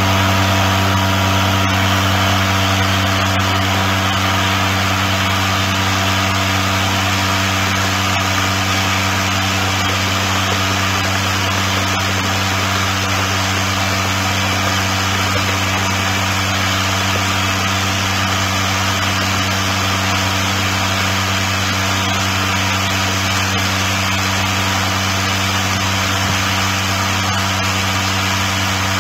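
Vibratory bowl feeder sorting plastic medicine bottle caps, running steadily: a constant low hum from the vibrating stainless-steel bowl under a dense, even rattle of caps jostling in the bowl and shuffling single-file up the spiral track.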